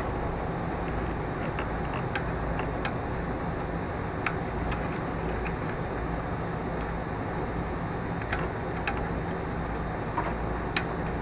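A few light, sharp clicks and taps of the mower's stop cable and its Z-bend end being worked loose by hand, scattered over a steady low background hum.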